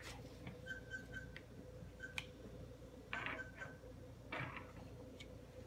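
Quiet room with a faint steady hum and a few soft clicks and taps as a plastic cookie cutter and Play-Doh are handled on a tabletop, with two brief soft rustles about three and four and a half seconds in.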